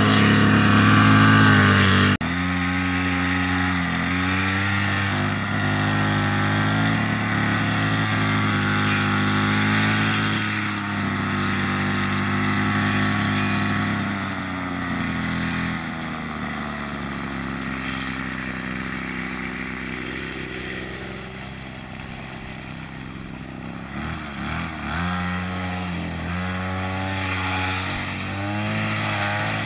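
A small engine running, its pitch rising and falling as it speeds up and slows, dropping back and running quieter about two-thirds of the way through.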